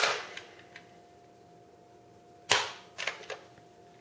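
Nerf dart blaster firing: a sharp pop about two and a half seconds in, followed by a few lighter clicks.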